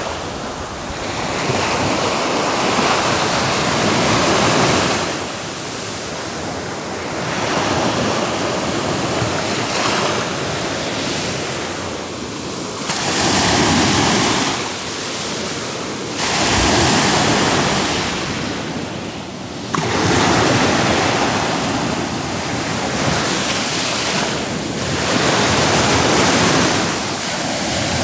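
Small sea waves breaking and washing up a coarse-sand beach, the rush swelling and falling back in surges every few seconds.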